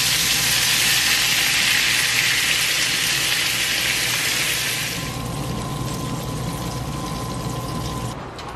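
Meatballs frying in an enameled cast iron pan, sizzling loudly as marinara sauce is poured over them. The sizzle dies down to a softer hiss about five seconds in, once the sauce covers the pan.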